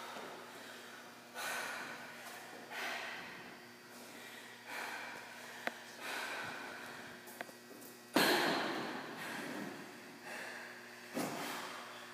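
A person breathing hard in deep, noisy breaths, one every second or two, recovering from hard exertion; the loudest breath comes a little after eight seconds in.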